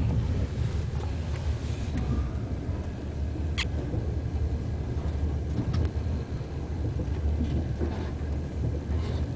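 Steady low rumble of a passenger train carriage running along the track, with a few brief squeaks and clicks; a sharp high squeak about three and a half seconds in.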